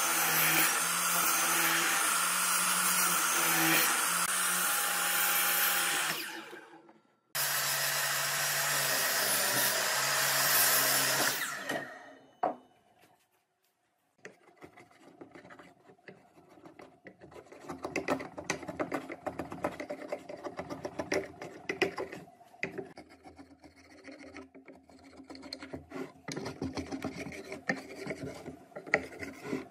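A Makita sliding miter saw runs and cuts shallow grooves in a pine board. It breaks off briefly about seven seconds in, runs again and stops about twelve seconds in. After a short silence, a hand chisel scrapes and chips out the wood between the grooves in many short, irregular strokes.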